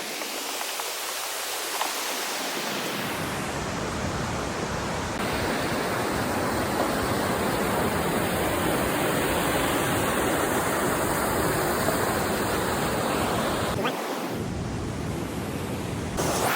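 Steady rushing noise of wind and water with no voices, a little louder from about five seconds in and changing briefly near the end.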